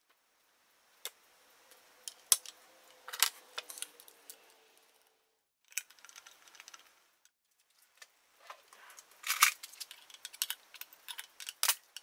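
Hand tools and small metal parts clinking and tapping against a chainsaw crankcase and the workbench: irregular sharp clicks, busiest and loudest about nine seconds in.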